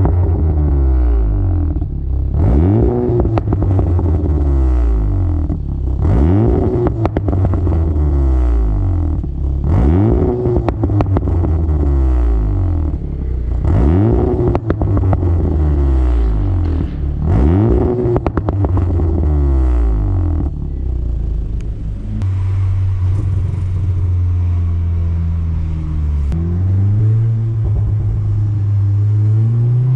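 VW Golf 7R's turbocharged 2.0-litre four-cylinder blipped hard at standstill about five times, roughly every four seconds, popping and crackling on the overrun as the revs fall, on its stock engine map. About twenty seconds in, the sound changes to the engine pulling steadily while driving, heard from inside the cabin, its pitch rising near the end.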